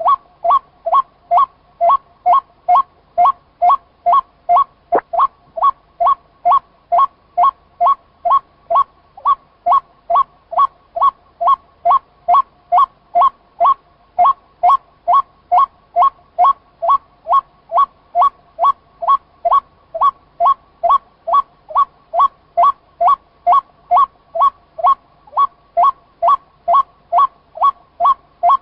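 White-breasted waterhen call: a short two-pitched note repeated very evenly, about twice a second, without a break.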